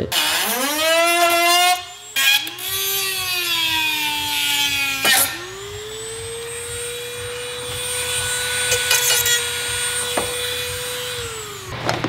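Corded power cutting tool cutting into a car hood panel along a taped outline. Its motor speeds up, then sags in pitch as it loads in the cut. After a click it holds a steady whine for about six seconds and winds down near the end.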